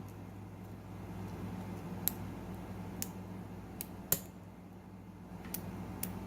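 A lock pick and tension wrench working the pins of a custom-pinned lock: a handful of light, irregular metal clicks, over a steady low hum.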